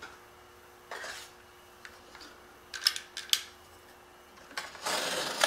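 Knife scoring the back of a drywall piece: a short scrape about a second in, two sharp clicks around the middle, and a longer scraping stroke near the end.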